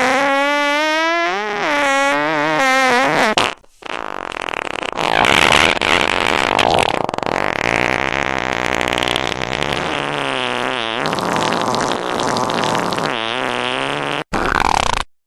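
A run of fart sounds, some long and wavering in pitch, others noisier and sputtering, broken off abruptly twice: about four seconds in and near the end.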